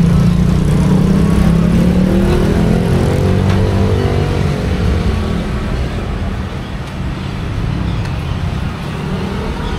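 A motor vehicle's engine running close by in street traffic, loud at first and slowly fading as it moves away, over general traffic noise.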